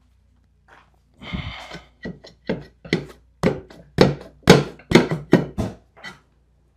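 Hammer blows, about a dozen in quick succession and loudest near the middle, knocking an unbolted front-axle differential out of its housing.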